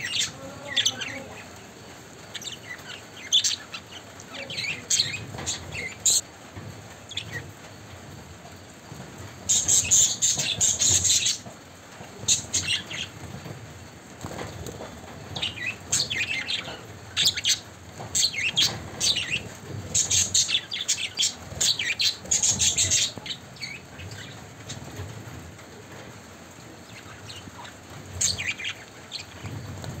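Budgerigar bathing in a small plastic water dish, fluttering its wings to splash in short bursts, the longest lasting a second or two about ten and twenty seconds in, with short bird chirps between.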